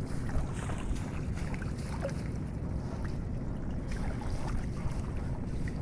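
Steady, uneven low rumble of wind buffeting the microphone aboard a wooden fishing boat out on a wide river.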